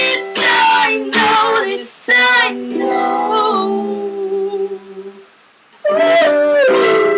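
Strummed chords on a plucked string instrument, with a voice singing along. The chords ring out and fade about five seconds in; after a short pause a new strum starts, with the voice sliding down in pitch.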